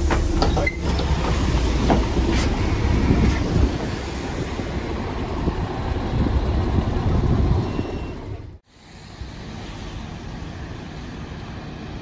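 Bus engine running with a heavy low rumble, rattles and scattered knocks and clicks; about eight and a half seconds in it cuts to a quieter, steady run of the bus's engine and road noise as it pulls away, heard from outside.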